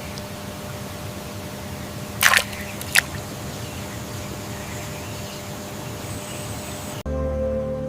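Steady outdoor hiss broken by two short, sharp cracks or snaps about two and three seconds in.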